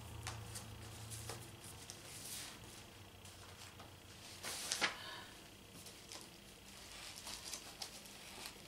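Faint rustling and light clicks of packaging being handled: a fabric brush roll set aside and hands reaching into a cardboard box of foam packing peanuts. A slightly louder rustle comes about five seconds in.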